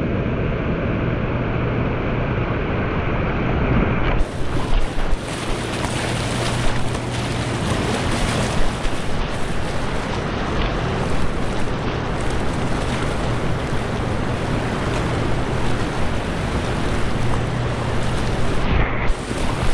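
Loud, steady rush of whitewater rapids, with wind buffeting the microphone. About four seconds in, the rush turns suddenly harsher and hissier.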